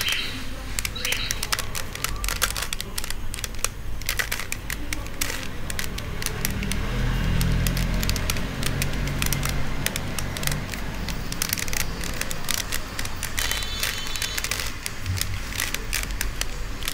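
A plastic 3x3 Rubik's cube being twisted by hand: quick, irregular clicking and clacking as its layers turn, over a low steady hum.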